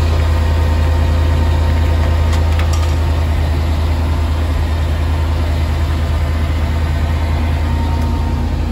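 1988 Chevrolet C30 tow truck's engine idling with a steady low hum.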